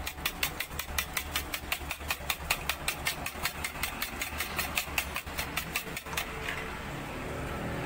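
Metal spoon beating eggs in a ceramic bowl: rapid, regular clinks against the bowl, about six a second, stopping about six seconds in. A steady low hum runs underneath.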